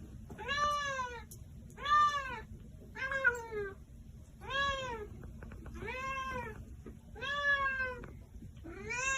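Domestic cat meowing repeatedly: seven drawn-out meows, each rising then falling in pitch, about one every second and a half.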